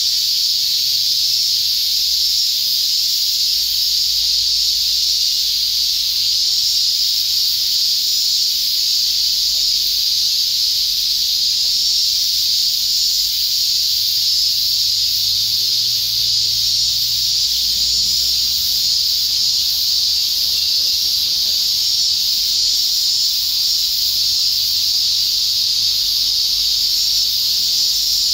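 Cicadas buzzing in a loud, steady chorus: one unbroken high-pitched sizzling drone that does not rise or fall.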